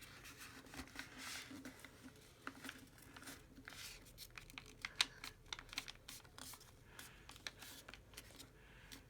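Paper being folded and creased by hand into a paper airplane wing: quiet, irregular crinkles and small sharp ticks, the sharpest about halfway through.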